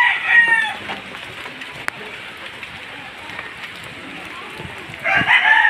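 A rooster crowing twice: one crow ends just after the start and another begins about five seconds in. Steady rain falls throughout, with a single sharp click just under two seconds in.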